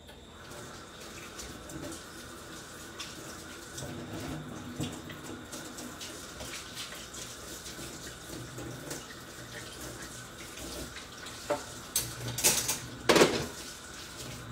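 A kitchen tap running steadily for about fourteen seconds, with a few loud knocks near the end.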